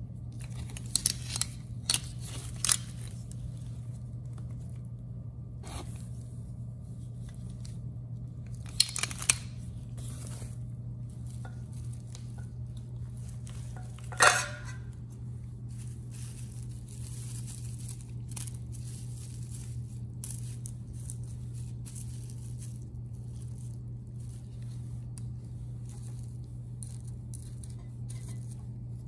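Plastic wrap and bubble wrap crinkling and rustling as stainless steel table parts are handled, with a handful of sharp metal clinks and knocks, the loudest about halfway through. A steady low hum runs underneath.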